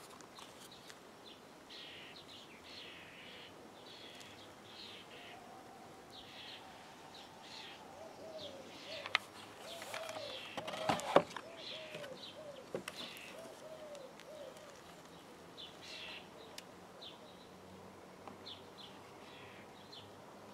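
Faint outdoor birdsong: small birds chirping throughout, with a pigeon cooing in a run of repeated low notes through the middle. A few sharp knocks from the strimmer being handled on the wooden table stand out about halfway through.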